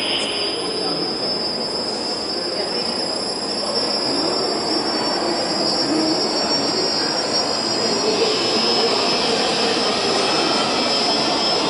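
Mine winding-engine cable drum turning: a steady high-pitched whine over a running mechanical noise, growing louder about four seconds in, with a hiss added from about eight seconds in.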